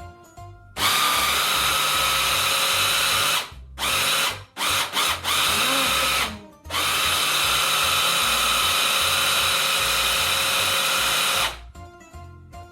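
Electric blender running on a batter of banana, eggs, oats and chocolate: a steady run of about three seconds, a few short pulses, then a longer steady run that stops near the end.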